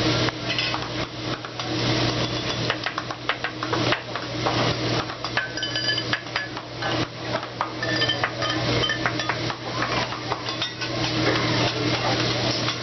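A metal spatula and knife clacking and scraping on a steel teppanyaki griddle as vegetables are chopped and turned. Quick irregular knocks run throughout, with a few brief ringing metallic clinks, over a steady low hum.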